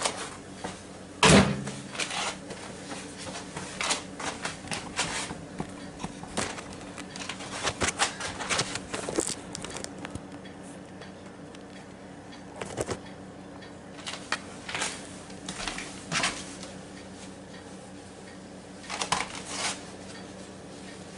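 Kitchen handling sounds from taking out and handling a hot microwaved breakfast biscuit sandwich: scattered clicks, knocks and rustles, with one sharp knock about a second in, over a steady low hum.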